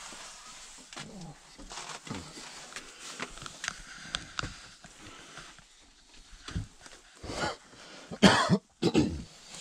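A man coughing twice, loudly, near the end, after a quieter cough-like burst; before that only faint knocks and rustles.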